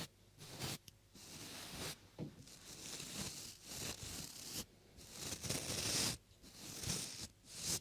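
Close-up strokes rubbing over a binaural ASMR microphone: a run of soft rustling swishes, most lasting a second or two, with short breaks between them.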